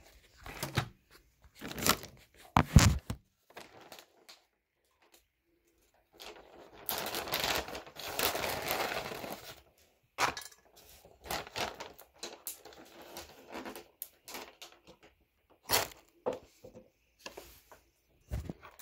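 Handling noise from a phone being moved and covered: scattered knocks and clicks, with a few seconds of rustling about a third of the way in.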